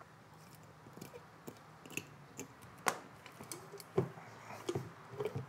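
Utility-knife blade prying and scraping at dried contact cement crusted around a glue pot's brush cap, working the stuck cap loose. Scattered small clicks and knocks, the sharpest about three and four seconds in.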